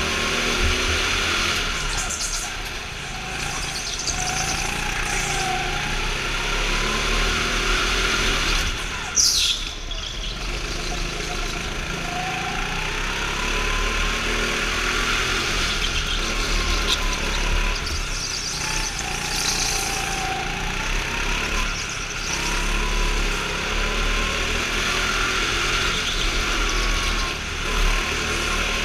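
Go-kart engine heard from on board, running continuously and rising and falling in pitch again and again as the kart speeds up and slows. About nine seconds in, a brief, loud, high squeal that falls in pitch cuts across it.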